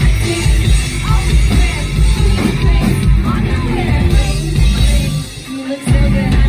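Loud rock music with singing over a heavy bass. The bass drops out for about half a second a little after five seconds in.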